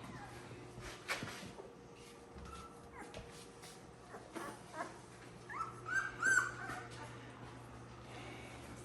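A week-and-a-half-old American Bully puppy whimpering in thin, high squeaks: a few short cries, then a louder run of cries about six seconds in. The puppy is hungry and looking for milk. There is a single knock about a second in.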